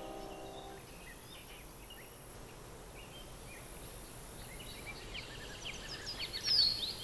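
Small birds chirping and calling outdoors, the calls growing busier near the end, with one louder falling chirp about six and a half seconds in. Soft music fades out within the first second.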